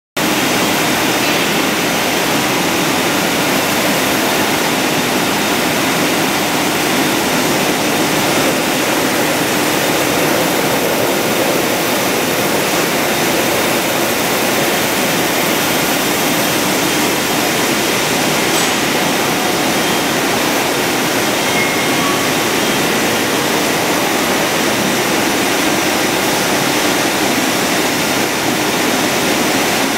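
Double twist bunching machine and its wire stranding line running: a steady, loud rushing whir with faint steady hums underneath.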